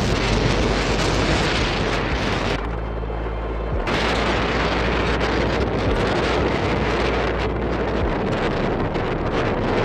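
Loud, steady rush of wind buffeting the microphone. About three seconds in it briefly gives way to a low, steady hum, then the wind noise returns.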